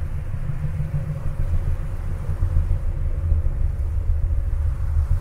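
Wind buffeting the microphone: a dull, fluctuating low rumble.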